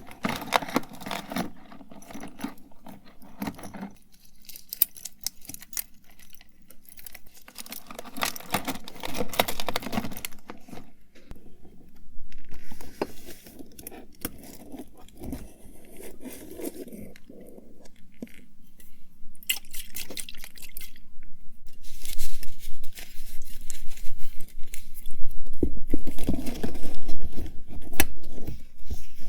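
Close-miked rummaging: irregular clicks, clinks, rustles and scrapes of small objects being handled and moved. It grows louder with heavier low knocks in the last few seconds.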